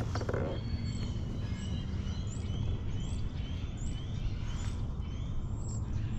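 Small birds chirping, a quick run of short rising chirps several times a second, over a steady low background rumble.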